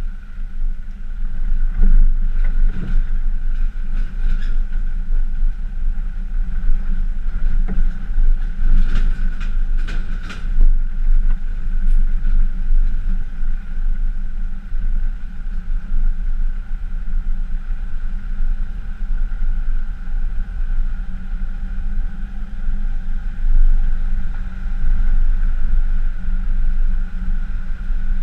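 Pickup truck driving on a rough dirt track while towing an off-road camper trailer: a steady low rumble, with clusters of knocks and rattles about 2 to 4 seconds in and again around 9 to 10 seconds in.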